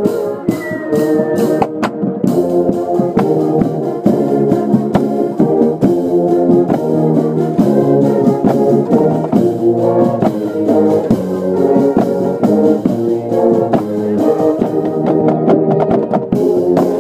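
Band music: brass instruments playing held, chord-like notes over drums keeping a steady beat.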